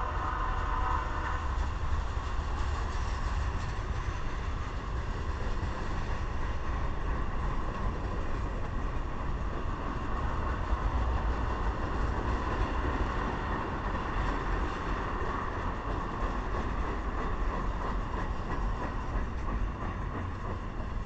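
Freight cars of a long mixed train, covered hoppers and tank cars, rolling past close by: a steady rumble of steel wheels on the rails.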